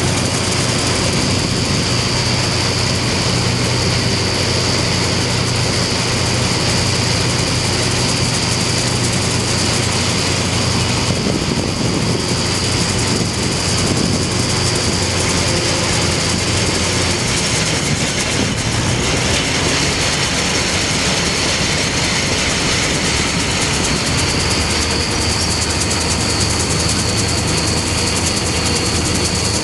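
Pull-type John Deere 360 combine harvester threshing grain while towed by a Case IH 1056 XL tractor: a steady mechanical drone of the working combine and the tractor's engine, with a steady high whine over it.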